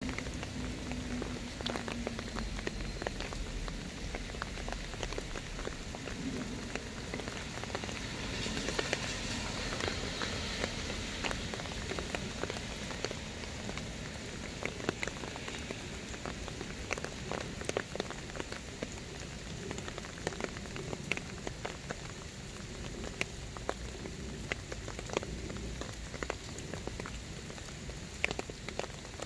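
Steady rain falling on wet soil and leafy plants, with many individual drops ticking out sharply over the hiss. It grows a little louder for a few seconds about a third of the way through.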